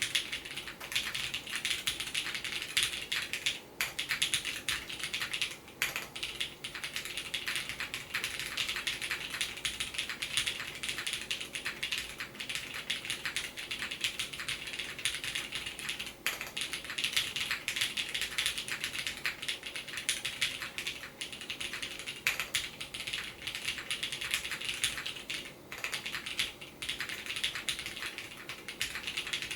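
Continuous fast typing on a mechanical keyboard with tactile brown switches (Cherry MX Hyperglide Brown housings with Kailh Brown stems) in an o-ring mounted aluminium half plate, with GMK keycaps and no sound dampening, giving a dense stream of clacks. There are brief pauses about 4, 6, 16 and 26 seconds in. The owner calls the switches a terrible batch.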